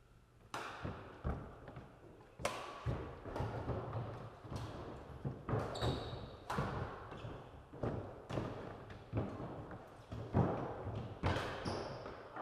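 Badminton rally: rackets strike a shuttlecock about once a second, each sharp hit echoing in a large hall. A couple of short high squeaks come from court shoes on the sports floor.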